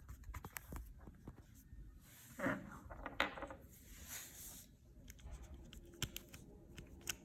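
Faint scattered clicks and rustling from handling the Wearbuds smartwatch band and its earbuds, with a couple of slightly louder soft scrapes a few seconds in.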